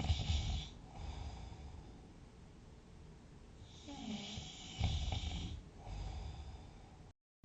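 Loud snoring in deep sleep: two big snores about four seconds apart, each a low rumble with a hiss of air, and softer breathing between. The sound drops out to dead silence for a moment near the end.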